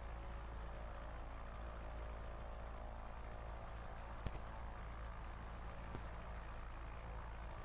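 Cessna 150's four-cylinder Continental O-200 engine idling steadily during warm-up just after a cold start. There is a sharp click about four seconds in and a fainter one about six seconds in.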